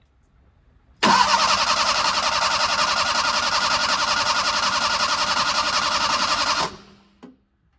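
Fiat 850 Sport Spider's four-cylinder engine being cranked by the starter motor for about five and a half seconds, turning over evenly without catching, then stopping abruptly. It does not fire because no fuel is reaching the fuel pump: the tank has drained into the engine.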